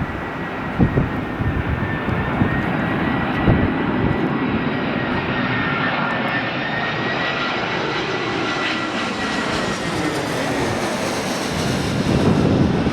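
Airbus A320-216 jet airliner on final approach, its engines giving a steady rushing noise with a held high whine, the hiss growing brighter in the second half as it draws nearer. Wind buffets the microphone in the first second.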